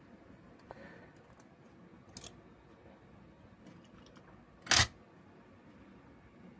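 Small clicks and handling noise of wires and a cooler pump head being worked on at a bench, with a sharper click about two seconds in and one short, loud knock a little before five seconds in.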